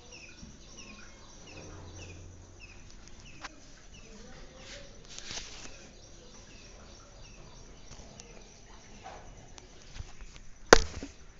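Quiet outdoor ambience with small birds chirping, a short falling call repeated a few times a second in the first seconds. One sharp loud knock comes near the end.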